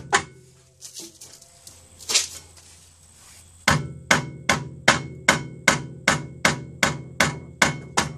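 A mallet striking around the edge of a Mercedes SLK 230 rear brake rotor. There are two separate blows, then a steady run of about a dozen taps at roughly two and a half a second, each leaving the metal rotor ringing briefly. The tapping loosens the seized rotor, which houses the parking-brake shoes inside its hat, from the hub.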